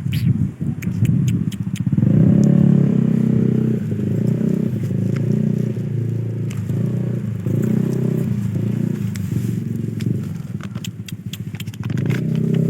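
Motorcycle engine running at a steady low idle, its note pulsing slightly, with a few light clicks and scrapes.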